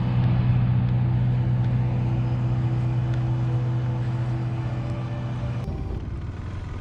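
A vehicle engine idling with a steady hum. About five and a half seconds in it gives way to a rougher, lower rumble of a motorcycle riding.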